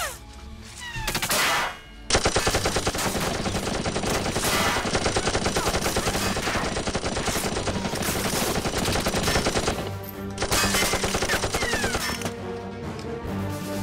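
Rapid automatic-gunfire sound effect: a few single shots, then a long unbroken burst, a brief pause and a second burst. Music comes in under it near the end.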